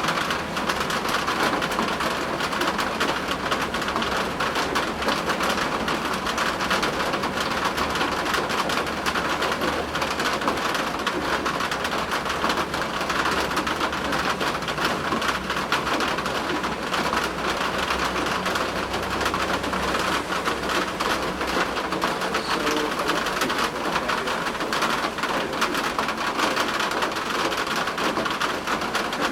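Steady heavy rain pattering down, with a low rumble of thunder swelling roughly two-thirds of the way in.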